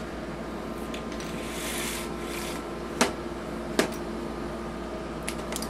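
GE 5,000 BTU window air conditioner running with a steady hum. There is a brief rustle about two seconds in, then two sharp clicks a little under a second apart.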